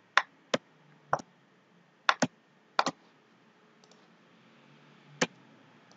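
Computer mouse clicking: about seven short, sharp clicks at uneven spacing, two in quick succession about two seconds in, then a pause before a last click past five seconds.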